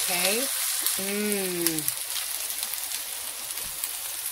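Black bean burger patties frying, a steady sizzle with many small crackles and pops.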